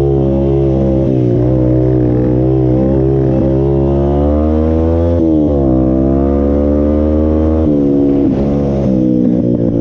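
Off-road vehicle engine running loud under throttle. Its pitch drops and climbs back about five seconds in, then shifts again near eight seconds as the revs change.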